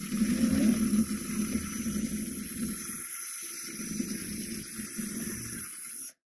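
Electric drill with a beater attachment running steadily inside a pumpkin, churning and whipping up the wet pulp and seeds. The low part of the sound drops out briefly about three seconds in, and it cuts off suddenly near the end.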